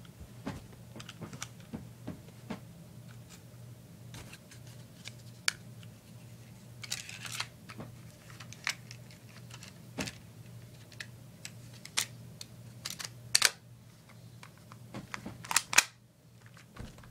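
Irregular clicks and clacks of a BB pistol being handled and worked on by hand, with a few sharper clicks in quick succession near the end.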